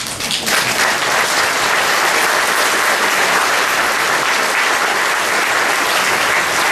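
Audience applauding. The applause breaks out at once, is at full strength within about half a second and then holds steady.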